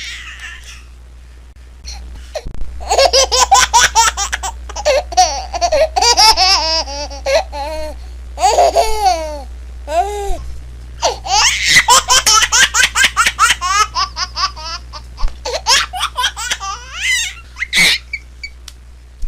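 A baby laughing in repeated fits of quick, rhythmic laughs, starting about two seconds in, with a few longer sliding vocal sounds around the middle. A steady low hum runs underneath.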